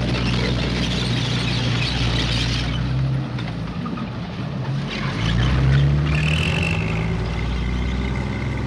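Tank engine running with a steady low drone as the tank moves forward, with a high hiss over it for the first few seconds. The engine grows louder about five and a half seconds in.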